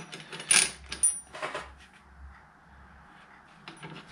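Steel parts of a threaded-rod bush press (washers, nuts and the bush on studding) clinking together as they are loaded up: a few sharp metallic clinks with a short ring in the first two seconds, then a faint knock near the end.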